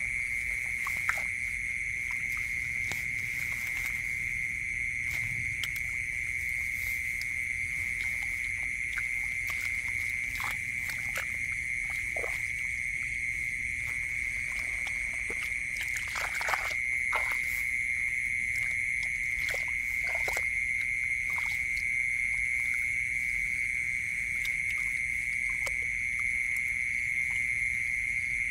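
Steady, high-pitched night chorus of calling animals from a flooded rice field. Over it come scattered small splashes and rustles of hands feeling through shallow muddy water and grass, bunched about halfway through and again a little later.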